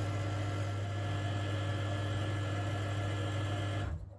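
Stuart Turner Mainsboost Flowmate booster pump running with a steady hum, muffled by a closed cupboard door, as it recharges the pressure vessel after the tap is shut. It cuts off about four seconds in, once the vessel is recharged.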